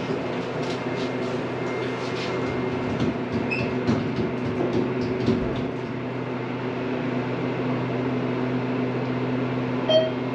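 Elevator car in motion with a steady motor hum and a few light rattles. About ten seconds in comes one short electronic beep, like a grocery checkout scanner beep.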